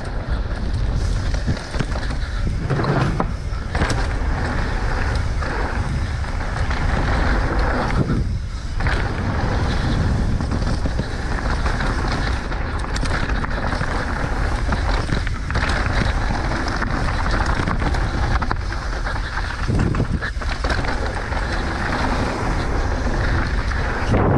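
Wind rushing over a helmet- or bike-mounted camera's microphone, mixed with the rolling noise and rattle of a mountain bike riding down a dirt trail, with a few brief dips in level.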